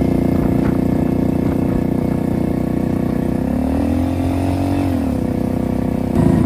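Modified Hero Splendor's single-cylinder four-stroke engine running loud through an aftermarket RX-type silencer as the bike is ridden. The engine note climbs briefly in pitch about three and a half seconds in and drops back a second or so later.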